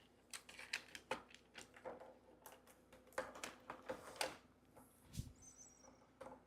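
Plastic magnetic building tiles and toy pieces clicking and clacking as they are handled and snapped together, in irregular light taps, with a soft thump about five seconds in.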